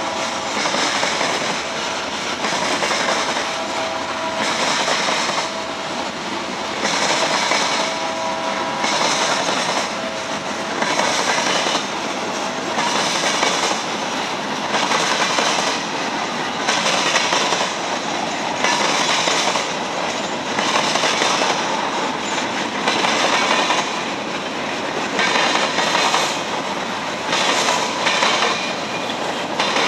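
Freight train's cars rolling past, their steel wheels clattering across the rail diamond in a regular clickety-clack, with a louder swell about every two seconds as each car's trucks go over. A thin wheel squeal sounds over the first few seconds.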